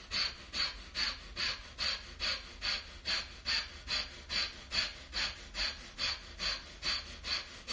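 A woman's short, forceful exhales blown through pursed lips, repeated in an even rhythm a little over two a second. This is a pumping breathwork exercise: each out-breath is forced while the in-breath is left passive.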